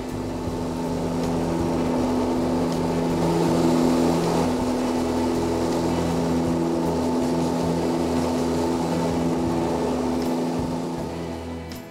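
Aircraft engines droning as heard inside the cabin in flight: a steady hum of several held tones over a rushing noise. It fades up over the first couple of seconds and fades down near the end.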